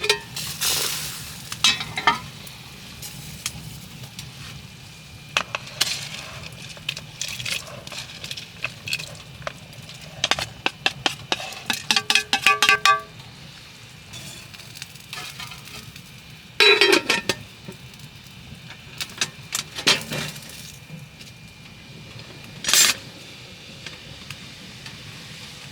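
Metal cookware and utensils knocking and clinking, irregular taps and clatter, with a quick run of ringing clinks around the middle.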